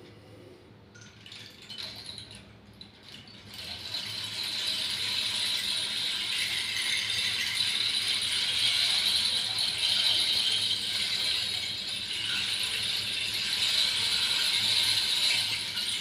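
Carved bamboo rain stick being tilted, its filling trickling down inside with a steady, rain-like hiss that starts about three and a half seconds in, after a few faint handling sounds.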